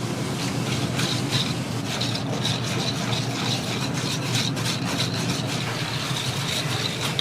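A steady low mechanical hum with a faint high whine and scattered light clicks and clatter over it.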